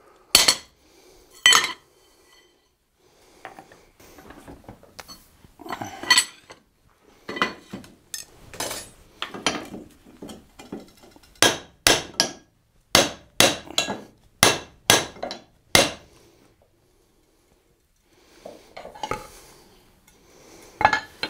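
Blacksmith's hand hammer striking a hot steel Pulaski axe head on the anvil: sharp metallic blows at an uneven pace, with a quick run of about eight blows in the middle and a short pause near the end.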